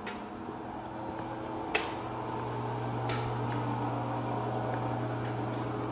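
Steady low mechanical hum from running equipment, getting a little louder about two and a half seconds in, with one sharp click just under two seconds in.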